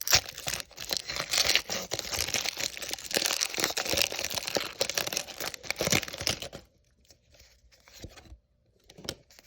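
Foil wrapper of a Pokémon trading card booster pack being torn open and crinkled: dense crinkling and tearing for about six and a half seconds, then only a few faint rustles and clicks.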